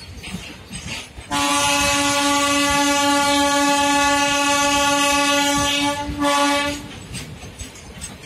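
Locomotive horn of a departing goods train: one long steady blast, then a short second blast after a brief break, over faint rumble of the train on the rails.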